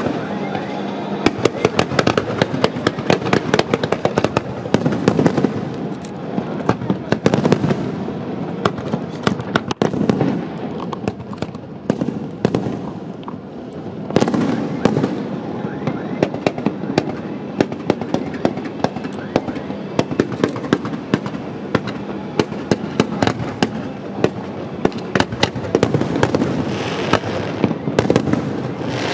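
Fireworks display: a dense, unbroken string of bangs and crackles as shells are launched and burst.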